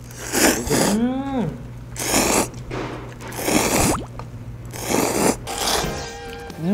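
Ramen noodles being slurped hard, about five loud slurps in quick succession, with a short pitched hum that rises and falls about a second in.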